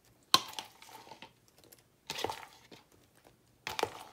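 A thin plastic container of chopped green onions being handled as a hand takes pinches from it: three short plastic crinkles and knocks, about a second and a half apart.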